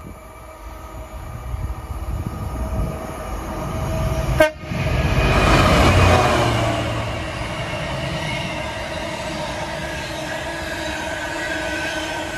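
Class 66 diesel locomotive passing at speed, its engine and wheels loudest about six seconds in, followed by the steady rumble and clatter of container wagons running by. A sharp click about four and a half seconds in.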